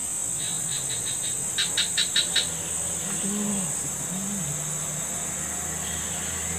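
Steady high-pitched insect drone of crickets or cicadas. A quick run of about five sharp clicks comes about two seconds in, and two short low sounds follow a little later.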